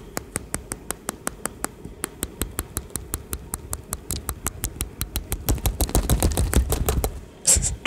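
Fingertip tapping rapidly on a phone's touchscreen, about six or seven taps a second, each tap stamping a sparkle star in a drawing app. A brief hiss comes near the end.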